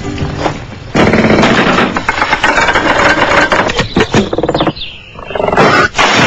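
Loud, pitched creaking and rattling of a house's structure straining, the sign of it giving way. It drops away near five seconds in, then comes back briefly.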